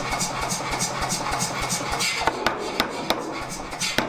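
88 lb Anyang power hammer forging a red-hot steel swage block. It strikes in a steady run of about four blows a second, and about two seconds in the blows turn sharper and louder, coming about three a second.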